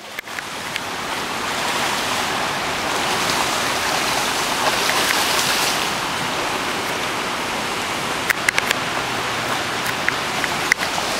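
Fast, shallow creek water rushing steadily over rocks, with a few short sharp clicks about three-quarters of the way through.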